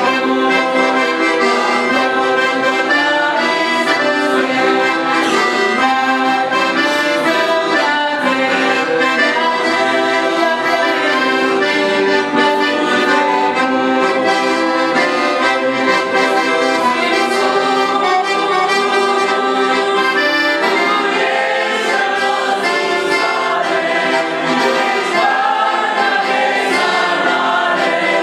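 Accordion playing a hymn melody with full chords, continuous and steady in level.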